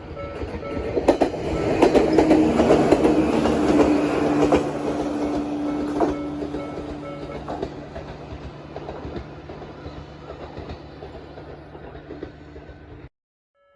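A Jōmō Electric Railway train passes over a level crossing, its wheels clacking over the rail joints, while the crossing's Nikko-type warning bell rings in a repeating pattern. The train is loudest a few seconds in and fades, and the sound cuts off abruptly near the end.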